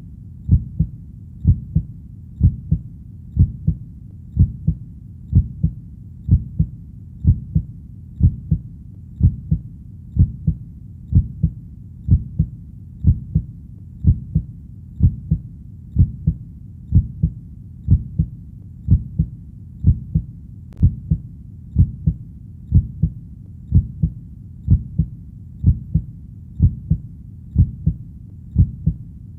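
Heartbeat, a steady double thump (lub-dub) repeating evenly about once a second, deep and low, over a faint steady background hiss.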